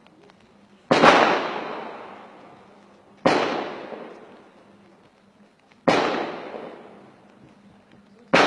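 Gunshots fired singly, four of them about two and a half seconds apart, each a sharp crack trailing off in a long echo.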